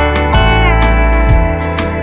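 Background music: an instrumental stretch of a song with sustained notes over a low beat about once a second, one high note sliding down in pitch about two-thirds of a second in.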